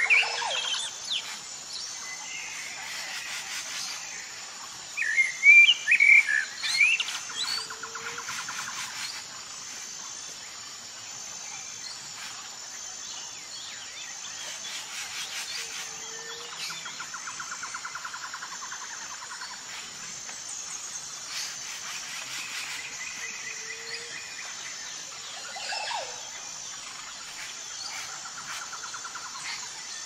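Common blackbird singing in short phrases, the loudest about five to seven seconds in, over a steady background trill.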